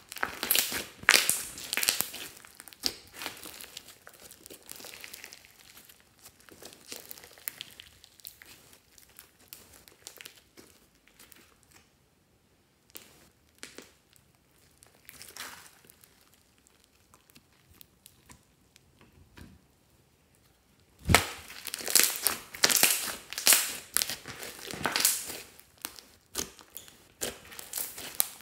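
Hands kneading, pressing and stretching a large mass of fluffy slime mixed with beads, giving a dense run of small crackles and pops. The handling is sparse and quiet through the middle, then busy and loud again about three-quarters of the way in.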